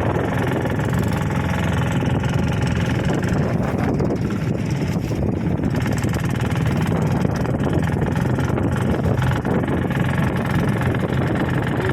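Small boat's engine running steadily.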